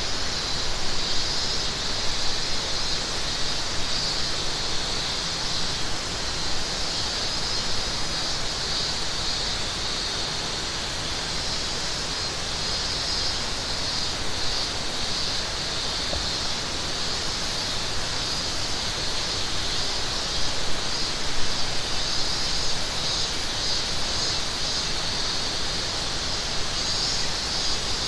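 River flowing as a steady rush of water, with cicadas shrilling over it in two high bands that swell and pulse.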